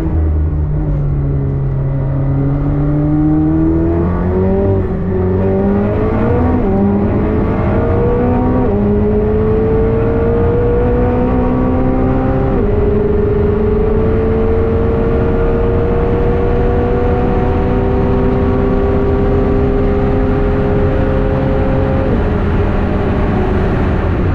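McLaren 765LT's twin-turbo V8 accelerating hard through the gears: the revs climb and drop back at several quick upshifts in the first half, then rise slowly in one long pull in a high gear, and fall away about two seconds before the end as the throttle comes off.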